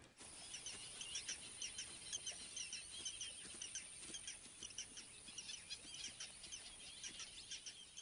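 Faint chorus of small birds chirping: many short, high notes overlapping throughout.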